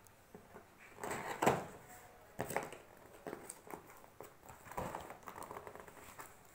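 Cardboard box being handled and opened: scattered scrapes, rustles and knocks of the packaging as its taped end is worked open, with the loudest clatters about a second and a half, two and a half, and nearly five seconds in.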